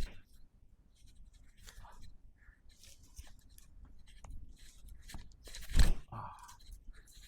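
Rustling and light scraping of clothing and a treatment table as a patient is handled during chiropractic work, with one sharp thump about six seconds in, the loudest sound.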